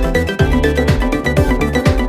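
Electronic music with a steady, fast beat of kick drums over a held bass line, with high percussion ticks.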